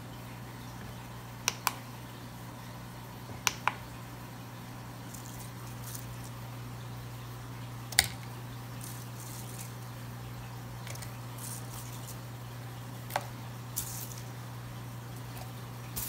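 Dried cannabis buds being handled and dropped into a paper cup on a digital pocket scale: light rustling and a few sharp clicks and taps from the cup and scale, the loudest about eight seconds in. A steady low hum sits underneath.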